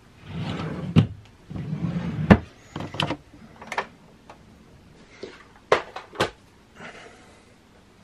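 A fabric curtain slid along its rail twice, each pull ending in a sharp knock, followed by several sharp clicks, among them the rocker switch of a ZB-R18 ring light being flipped.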